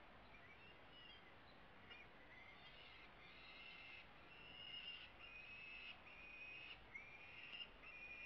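Peregrine falcon chicks giving food-begging calls while the male feeds them: a faint run of drawn-out calls, one after another, growing louder from about two seconds in.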